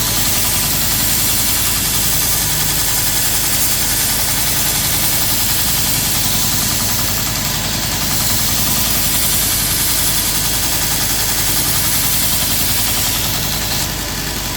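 Grizzly 2x42 belt grinder running steadily, its abrasive belt grinding the edge of a steel lopper blade.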